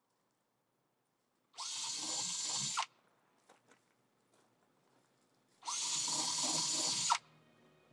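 Two bursts of a mechanical whirring, each a little over a second long and about four seconds apart, with fainter clicks and a low hum after the second.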